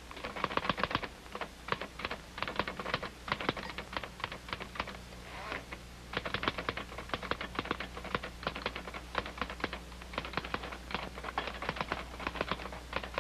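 Manual typewriter keys clacking in quick, irregular runs, with a short lull about five seconds in.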